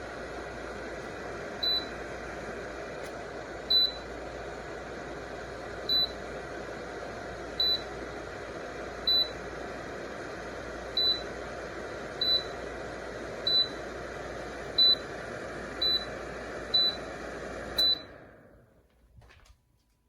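Fraxinus 1500 W ceramic space heater's fan running with a steady whoosh, while short high beeps sound about a dozen times, one every second or two. Near the end the fan winds down and goes quiet.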